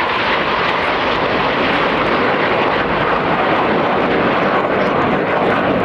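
Jet noise from Red Arrows BAE Hawk T1 trainers flying their display: a steady, loud rush of turbofan engine noise.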